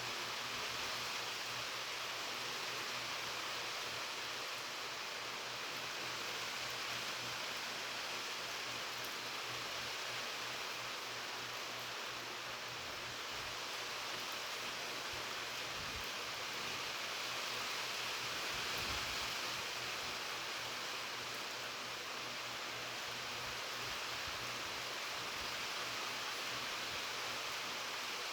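Steady rain falling: an even, unbroken hiss with no distinct drops or other events.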